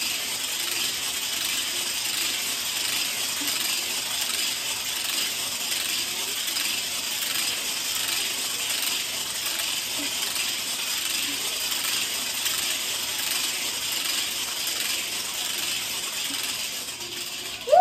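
Segmented exercise hula hoop spinning around the waist, its swinging weight running round the plastic track with a continuous, even, high rattle.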